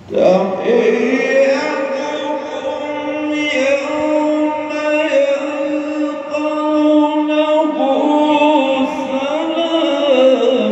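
A single voice chanting a slow melody in long held notes, beginning suddenly.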